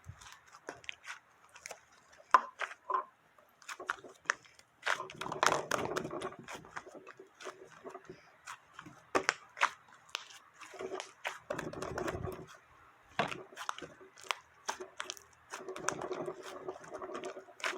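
Slime being squeezed and kneaded by hand, giving a run of sharp clicks and pops with denser, squishier stretches in between.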